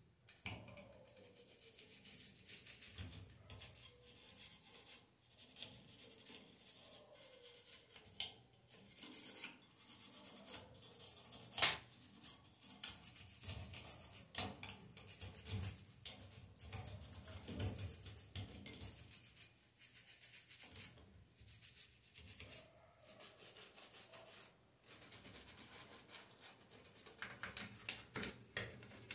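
A toothbrush scrubbing a tempered-glass gas cooktop around the control knobs and burners: quick bursts of bristle rasping with short pauses, and one sharp tap about halfway through.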